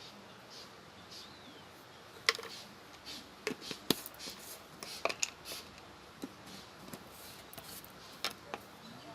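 A sil-batta stone grinder being worked: a stone muller knocking and clicking against the flat grinding stone in a run of irregular sharp taps, a dozen or so over several seconds, loudest about two and four seconds in.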